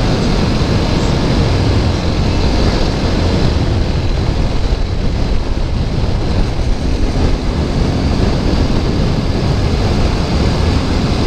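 Wind rushing over the rider's microphone while riding a TVS Apache RTR 200 4V motorcycle at road speed, its single-cylinder engine running steadily underneath.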